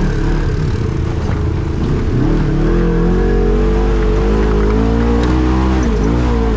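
Off-road vehicle engine running under throttle on a trail. Its revs climb about two and a half seconds in and hold, then drop briefly near the end before picking up again.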